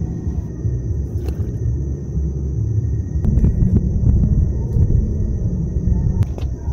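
Canister gas camping stove burner running with a loud low rumble under a metal cook pot. Now and then come light taps and clicks as chopped vegetables are scraped from a knife into the pot.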